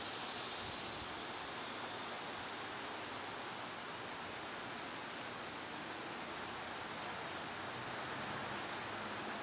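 Steady outdoor background hiss with no distinct event.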